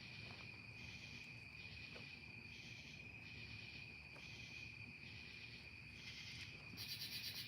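Crickets chirping: a steady high trill with rhythmic pulses of chirping over it, and a louder, faster burst of chirping near the end.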